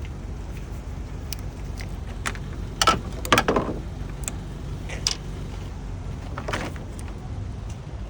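Hand tools clinking and clicking against metal as small Torx screws are undone and handled on an engine, with a few sharp clinks around the middle, over a steady low background hum.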